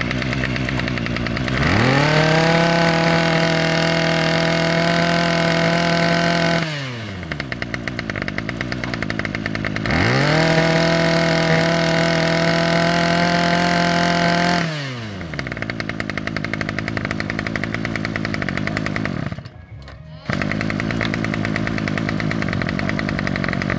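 Ryobi 26cc two-stroke brush-cutter engine running. It idles, is revved up twice to a steady high pitch for about five seconds each time, and drops back to idle after each. The loudness drops briefly near the end before the idle carries on.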